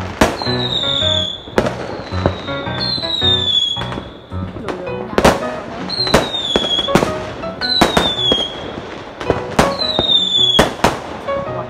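Aerial fireworks going off: a string of sharp bangs, roughly one a second, with short high whistles that dip in pitch, over background music.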